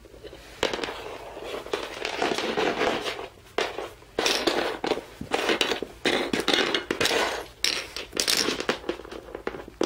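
Handling noise: small plastic toy figures and toy furniture being moved about and knocked on a wooden floor, with irregular rustles, clatters and light knocks.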